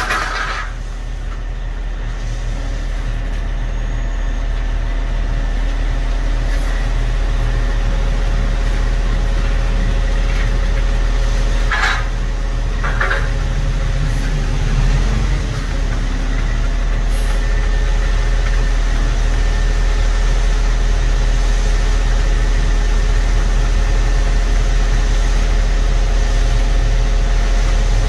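Concrete mixer truck's diesel engine running steadily as the truck discharges concrete down its chute, with a few brief sharp sounds about 12 and 13 seconds in.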